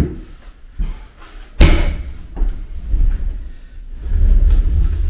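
Knocks and thumps on a plywood subfloor as a float presses plastic uncoupling mat into thinset, the loudest about a second and a half in. In the second half, a steady low rumble as a long-handled float is pushed across the mat.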